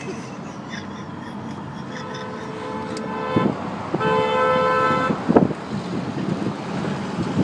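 Car horn, wired to the brake pedal so it sounds each time the brakes are applied, blaring twice: a longer honk about two seconds in and a louder, shorter one about four seconds in.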